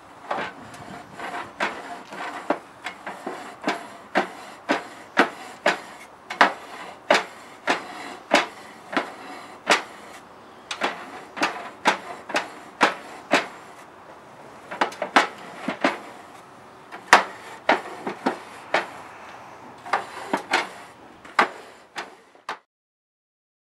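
Wire grill brush scrubbing a hot metal charcoal-grill grate in repeated strokes, about one to two a second, each ending in a sharp scrape, with a couple of short pauses. The scrubbing stops abruptly near the end.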